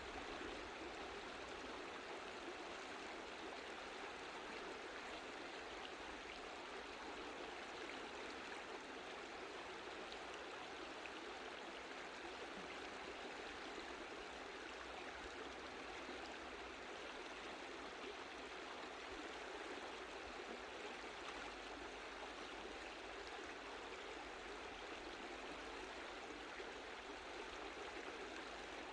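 Mountain stream flowing steadily over rocks: an even, gentle rushing of water with no breaks.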